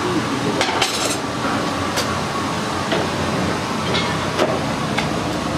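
Steady rushing noise of a coal forge's air blast and fire, with a handful of sharp metallic clinks as steel bars are handled at the hearth.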